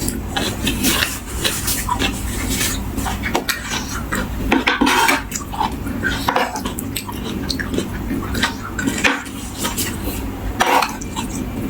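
Eating sounds: cutlery clinking against a plate or bowl, mixed with irregular crackly clicks from eating the food.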